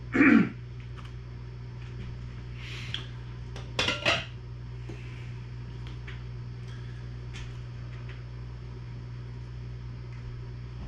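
Ceramic bowl and serving spoon clattering, loudest about four seconds in, then light clinks of the spoon against a stainless bowl as rigatoni is dished out, over a steady low hum.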